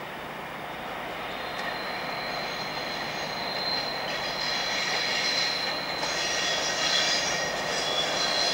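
Pair of Class 69 diesel locomotives approaching on curved track. Their wheel flanges squeal with a high steady tone from about a second and a half in, over the rumble of the locos, growing louder as they near.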